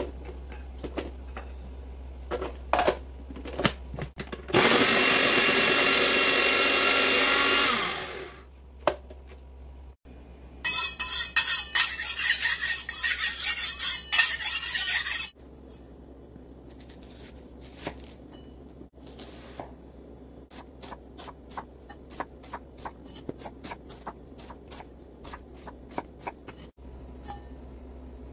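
A small electric food processor whirs steadily for about four seconds as it minces garlic cloves. Later, a kitchen knife scrapes repeatedly against a handheld sharpening stone for about five seconds. Then comes a long run of light knife clicks on a wooden cutting board, all over a low steady hum.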